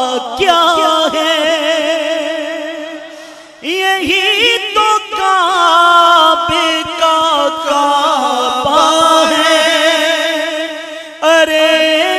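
A male naat reciter singing an Urdu naat into a microphone, drawing out long ornamented notes whose pitch wavers and slides. The voice fades briefly about three and a half seconds in and again near the end, each time coming back with a new phrase.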